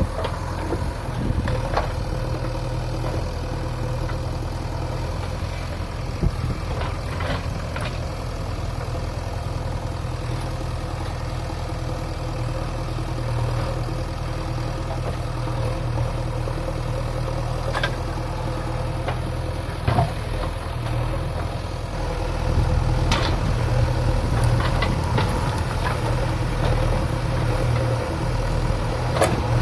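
Diesel engine of a JCB 3DX backhoe loader running steadily, growing louder about two-thirds of the way through, with a few sharp knocks along the way.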